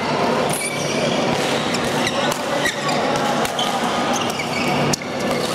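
Badminton rackets hitting a shuttlecock in a doubles rally: sharp cracks at irregular intervals, about once a second, over the steady hubbub of a large sports hall.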